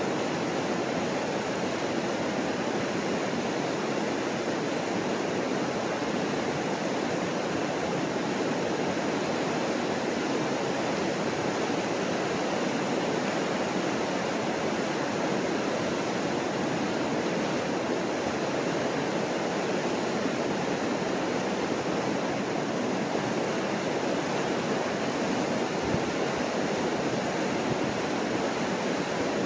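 Steady, unbroken rush of the Mississippi River pouring over the rock falls and rapids at Chain of Rocks, with a brief low bump near the end.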